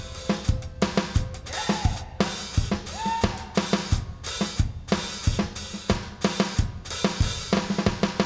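Live band passage led by the drum kit: a steady beat of kick and snare with hi-hat and cymbal hits, over bass, with a couple of short rising notes from another instrument.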